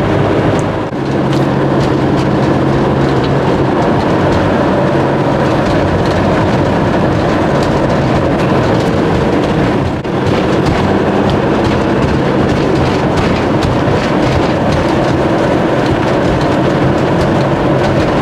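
Steady road noise heard from inside a moving vehicle: engine drone and tyre noise on the road, briefly easing about a second in and again about halfway through.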